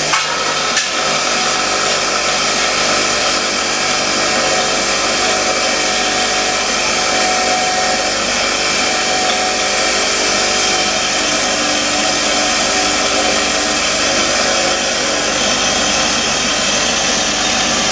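Bench grinder running with a wire wheel, scrubbing carbon and rust off a hand-held Volkswagen engine valve: a steady, loud abrasive hiss over the motor's hum.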